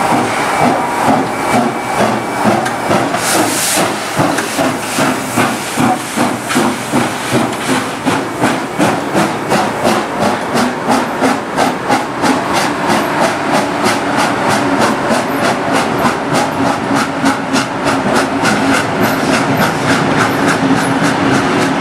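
Steam locomotive 3642 working under power, its exhaust chuffing in even beats that quicken as it gathers speed. A short hiss of steam comes a few seconds in.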